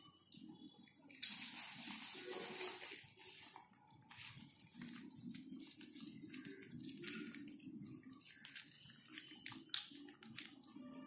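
Mother dog and puppies eating scraps off a tiled floor: wet chewing, licking and smacking with many small clicks. A louder rushing hiss comes in suddenly about a second in and fades after about two seconds.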